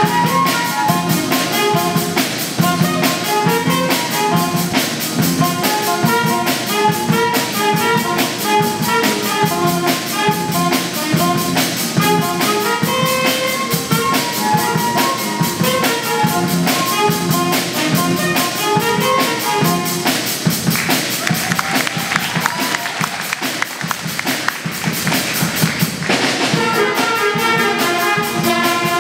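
School jazz band of saxophones, clarinets, trumpets, trombone and drum kit playing over a steady drum beat. About twenty seconds in the horn lines drop back for several seconds, then the full band comes back in.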